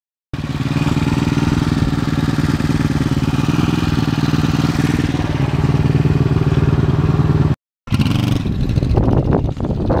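Honda CB450 DOHC's parallel-twin engine running at a steady speed while the bike is ridden, heard close up. After a brief break the engine is heard again, less steady, as the motorcycle rides away up the street.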